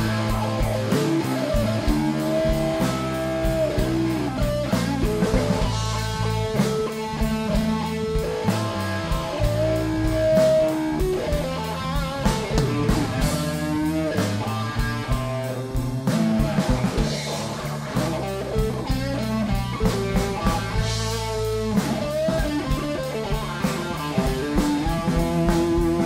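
Live blues band playing an instrumental passage: electric guitar lead with bent, held notes over bass guitar and a drum kit.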